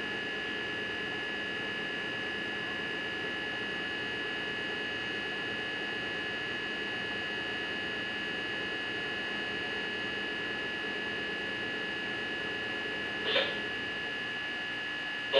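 A steady hum with two constant high whine tones over a low drone, and one brief short sound near the end.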